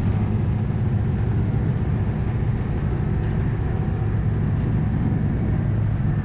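Car ferry's engines droning steadily, a deep even hum under a wash of wider noise.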